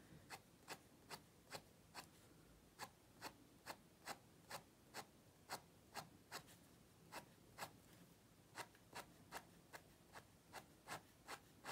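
Fine-tip Micron 08 ink pen hatching light shading strokes on paper: a faint, short scratch with each stroke, about two to three strokes a second in a steady rhythm.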